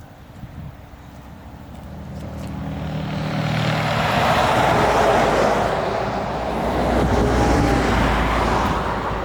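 A motor vehicle approaching: a low hum swells over about three seconds into a loud, steady rushing noise that holds.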